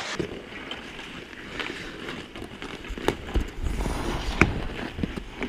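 Ice hockey play: skates scraping over the ice, with several sharp clacks of sticks and puck, the loudest about four and a half seconds in.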